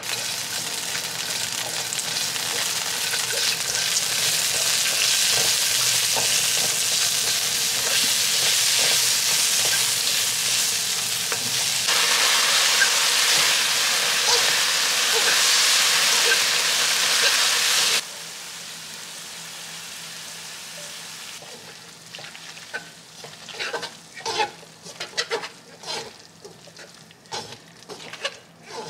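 Food sizzling in a frying pan, with a steady hiss that steps up about twelve seconds in and drops away sharply about six seconds later. After that, quieter sizzling with scattered clicks and scrapes of a utensil in the pan.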